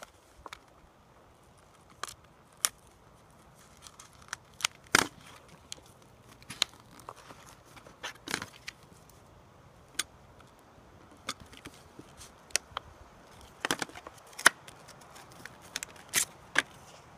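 Stiff plastic blister packaging of a credit-card diamond sharpener being handled and opened: scattered sharp crackles and clicks, one or two at a time, with quiet between.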